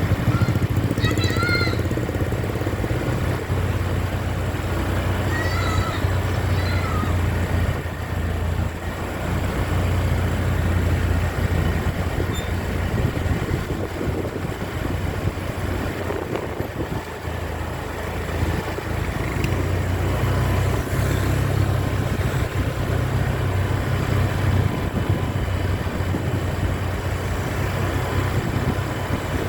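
Bus engine and road noise in a steady low rumble, with two short, high wavering calls about one and six seconds in.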